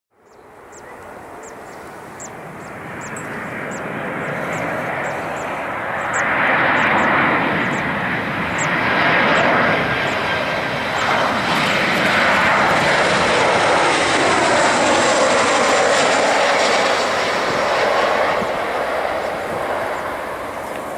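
Jet engines of a Boeing 737-800 (CFM56-7B turbofans) roaring as the airliner passes, building over several seconds to a loud, steady peak and easing slightly near the end.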